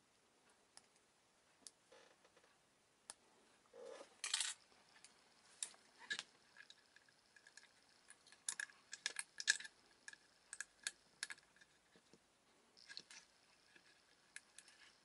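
Faint scattered clicks and small taps of a new power transistor and a circuit board being handled as the transistor is fitted into the board against its heatsink, busiest about four seconds in and again near the middle.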